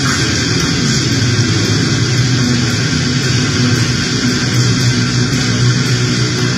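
Harsh noise music: a loud, unbroken wall of hiss and grit with a low hum underneath, changing little over the stretch.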